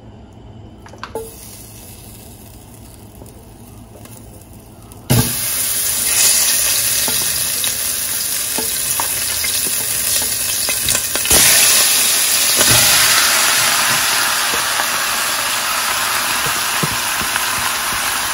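Curry-seasoned chicken pieces and vegetables dropped into hot vegetable oil in a nonstick pot, starting to sizzle suddenly about five seconds in and getting louder when more is scraped in with a spatula about eleven seconds in. A few knocks of the spatula and chicken against the pot.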